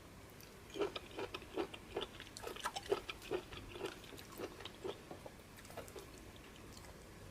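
Close-miked chewing and mouth sounds of a man eating fufu with peanut soup: a quick run of short, moist clicks and smacks starting about a second in and tapering off near the end.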